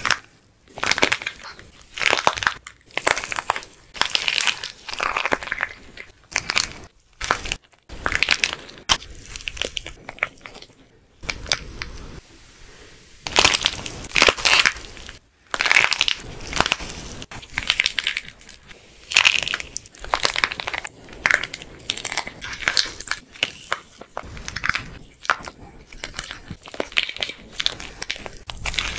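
Dried plaster clay crust on a balloon being cracked and crushed by hand: irregular crackling and crunching bursts as the brittle shell breaks up and crumbles. There is a quieter stretch about eleven seconds in, followed by a loud burst of cracking.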